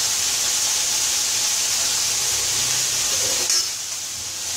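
Vegetables sizzling in pans on a gas stove, a steady hiss. About three and a half seconds in there is a short metallic clink, and the hiss drops a little for a moment.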